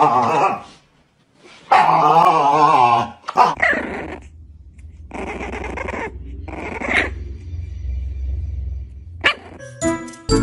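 Siberian husky howling: two long, loud calls with a wavering pitch in the first three seconds. Then a small puppy gives several short, high cries over a low rumble.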